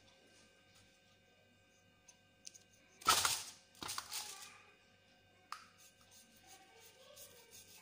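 Hands handling a whole raw fish on crinkly aluminium foil: a loud rustling scrape about three seconds in, a softer one a second later, a sharp click further on, and scattered light rustles and clicks.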